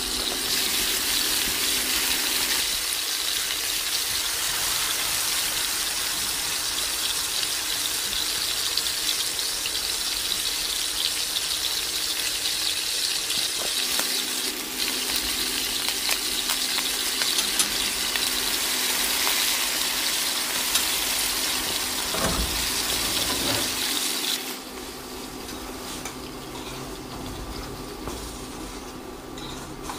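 Kitchen tap water running in a steady rushing stream, cut back about 24 seconds in to a much softer hiss.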